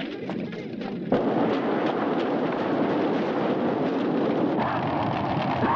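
A fire flaring up with a sudden whoosh about a second in, then burning steadily with dense crackling.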